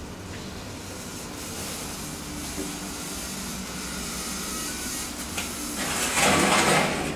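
DEVE hydraulic elevator car travelling, a steady low hum of its machinery, with a loud rushing hiss lasting about a second near the end.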